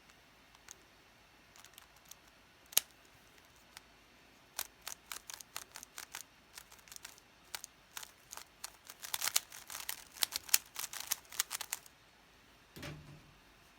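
Magnetic speed cube being turned by hand: a few single clicks, then a fast run of sharp clicks as the layers are spun and snap into place, busiest about nine to twelve seconds in. A short dull knock near the end.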